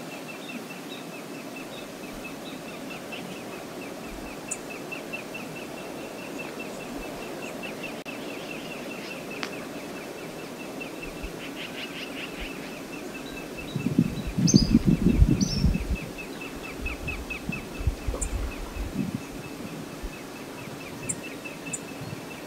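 Outdoor river ambience: steady flowing-water noise, with a high, rapid ticking trill at about six ticks a second running on and off for long stretches and a few short bird calls. A bit past the middle comes a brief burst of low rumbling, the loudest sound.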